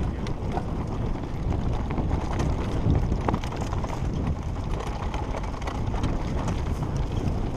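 Off-road motorcycle ridden over rough, bumpy ground, heard through a helmet-mounted camera: heavy wind buffeting on the microphone over the engine, with scattered short knocks from the bumps.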